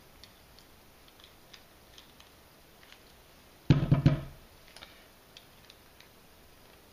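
Faint, scattered small clicks of a screwdriver working at a screw in a bike light's extruded case, then a short cluster of loud knocks a little under four seconds in as the case is bumped and handled.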